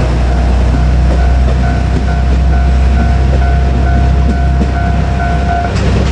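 KiHa 200 diesel railcar rumbling past on the rails while a level-crossing warning bell rings in a steady, rapid pulse, about twice a second; the bell stops suddenly near the end, once the train has cleared the crossing.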